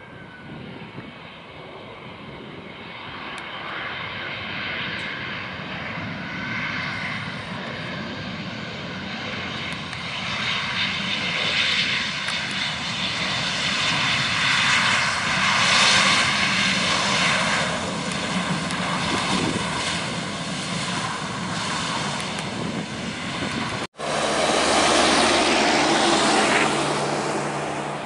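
Jet engines of an Airbus A320 airliner just after touchdown, rolling out along the runway, a steady roar that builds to its loudest around the middle. After a sudden cut near the end, a second jet airliner's engines on final approach, a loud roar with a low steady hum.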